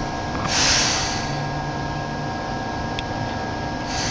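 Inside a standing Hakone Tozan Railway train: a steady electrical hum with several fixed tones, a short hiss about half a second in, a single click about three seconds in, and another hiss starting near the end.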